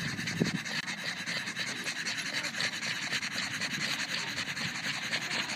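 Pug panting quickly and evenly close to the microphone, a steady run of short breathy strokes.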